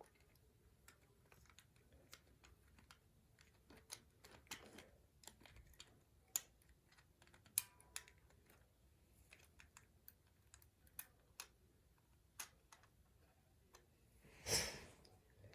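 Small plastic toy parts being handled while a spring-loaded pop-out wing pack is reassembled: faint, irregular clicks and taps, with a louder half-second scrape or rattle near the end.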